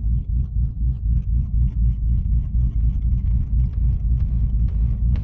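C8 Corvette's 6.2-litre LT2 V8, fitted with aftermarket cylinder heads and a performance camshaft, idling with a choppy, pulsing lope of about four beats a second, the uneven idle of a big-cam engine.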